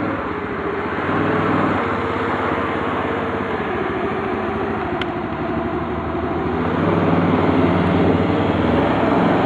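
Kazuma ATV engine running steadily while riding slowly across a lawn, getting a little louder in the last few seconds.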